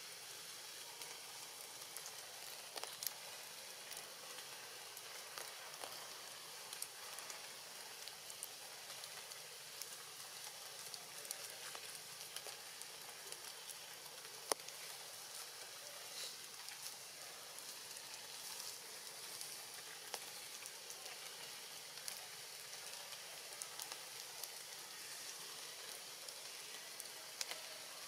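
Steady rain falling on forest foliage: a faint, even hiss dotted with many small drip ticks, one sharper tick about halfway through.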